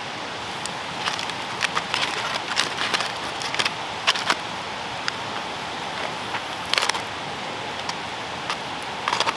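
Aluminium foil packet crinkling as it is opened and prodded on a campfire grate, with scattered sharp crackles and pops over a steady hiss. There are longer rustles about seven seconds in and again near the end.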